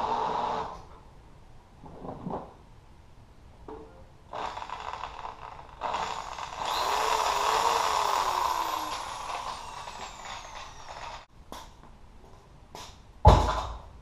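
Electric drill straining against a seized Briggs & Stratton engine in several bursts. Its longest run sinks steadily in pitch as the drill bogs down and burns out. A single loud thump comes near the end.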